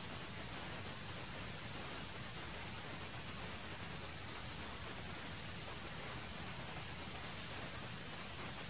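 Steady high-pitched drone of insects, one buzzing tone held without a break over a background hiss.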